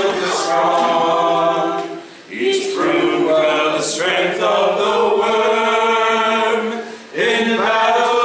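A small group of voices singing together a cappella, holding long sung notes, with short breaks for breath about two seconds in and again near seven seconds.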